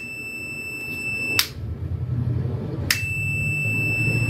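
Fluke 179 multimeter's continuity beeper sounding a steady high beep twice, each about a second and a half long, as a power switch is clicked on and off. Each beep means the switch's contacts are closing and conducting. A sharp switch click marks each start and stop of the beep.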